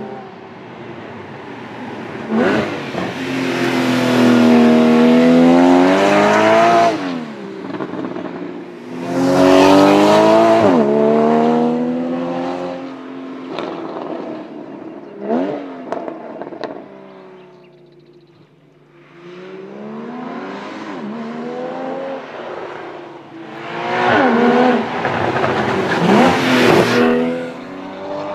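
Porsche Boxster GTS's 3.4-litre flat-six accelerating hard, its engine note climbing in pitch and then falling away several times as the car drives past. It is loudest in three passes, with a quieter lull about two-thirds of the way through.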